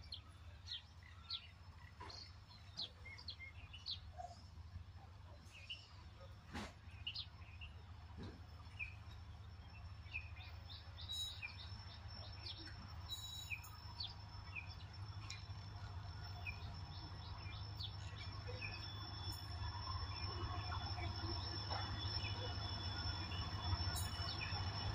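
Birds chirping in short repeated calls, over a low rumble that grows steadily louder as an EMD WDP4D diesel locomotive approaches.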